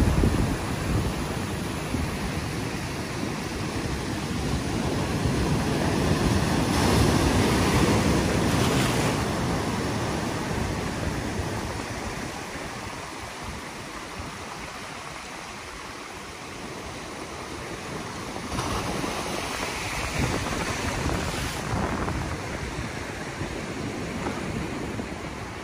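Ocean surf washing over a rock ledge, swelling twice and easing in between, with wind buffeting the microphone.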